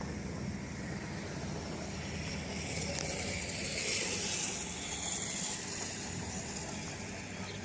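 Car engine running hard under full throttle, straining against a rope to pull down a tree, swelling a little in the middle.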